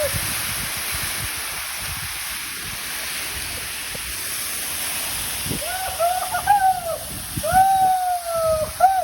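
Waterfall falling onto rock, a steady rushing hiss of water. In the last three seconds a few drawn-out calls rise and fall over it.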